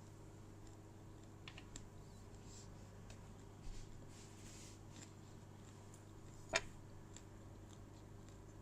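Faint, scattered crunchy clicks of fried insects being chewed, over a steady low room hum, with one sharper click about six and a half seconds in.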